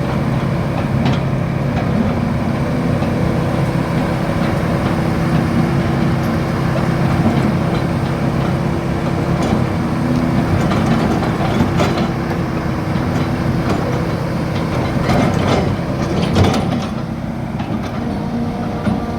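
Hitachi Zaxis 210F-5G excavator's diesel engine running steadily at a constant speed, with a few short knocks past the middle. The engine gets slightly quieter near the end.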